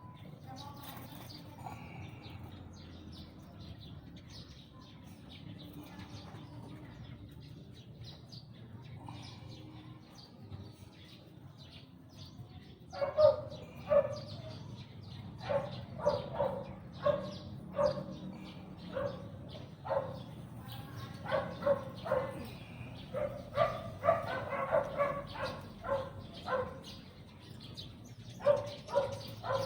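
A dog barking repeatedly, short sharp barks coming one or two a second, starting about halfway through after a quieter stretch.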